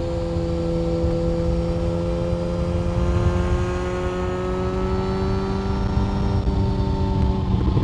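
Yamaha FZ1 Fazer's 998 cc inline-four engine pulling under load, its note climbing slowly in pitch, then breaking off near the end.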